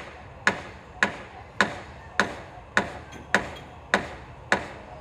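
Hand hammer striking steadily at the roof ridge, about two even blows a second, eight blows in all, each with a short ring, stopping near the end.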